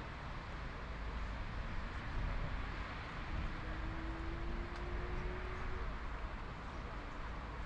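Steady outdoor rumble of distant traffic. A faint engine tone rises slowly in pitch for a couple of seconds midway.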